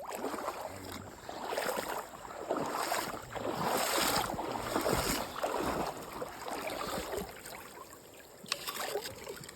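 Creek water splashing and sloshing in uneven swells as someone wades and handles rocks in the shallows, with a few small knocks.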